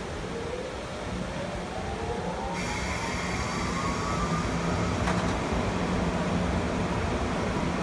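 EF66 electric locomotive pulling away slowly: a whine rising steadily in pitch as it accelerates, over a steady low hum, with one sharp clank about five seconds in.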